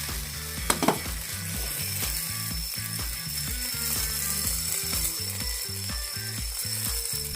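Background music with a steady, bouncy bass beat, with two sharp clicks just under a second in.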